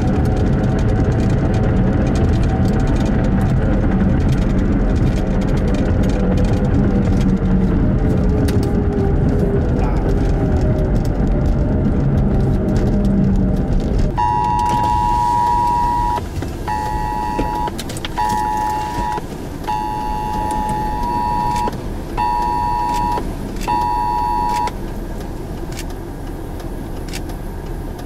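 Interior road and engine noise of a 2003 Buick Century driving, which drops away about halfway through as the car slows to a stop. Then a two-pitch electronic alert tone sounds in a long-short-short pattern, twice over: the cadence of a phone's Wireless Emergency Alert.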